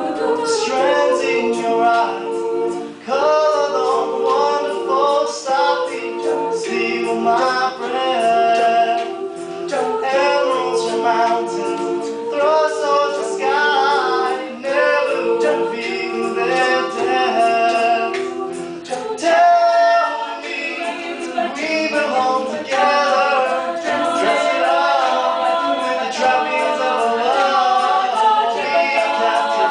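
Mixed-voice a cappella group singing: a male lead voice at the microphone over sustained sung backing harmonies from the rest of the group. About two-thirds of the way through, the lowest backing parts drop out and the accompaniment thins.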